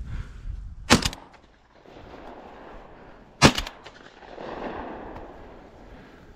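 Two shotgun shots, about two and a half seconds apart.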